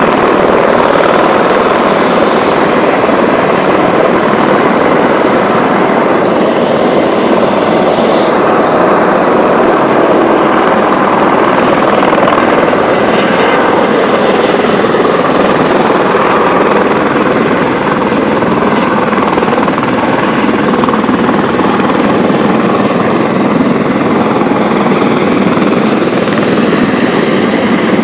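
Turbine tour helicopter running on the pad, its engine and rotors making a loud, steady noise that holds at one level throughout.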